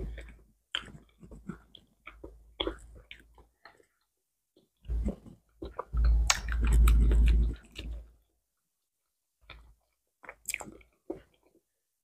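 Close-miked eating sounds of a person chewing soft ripe banana, with wet mouth smacks and clicks and the banana peel being pulled back. About six seconds in there is a louder, low rustling stretch lasting nearly two seconds.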